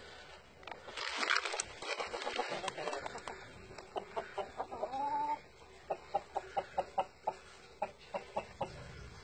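Game fowl clucking: one short pitched call about five seconds in, then a run of quick, short clucks about three a second. A loud burst of noise comes about one to three seconds in.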